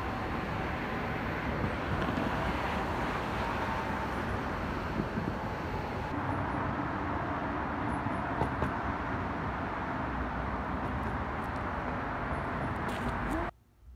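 Steady highway traffic noise from passing vehicles, cutting off abruptly near the end.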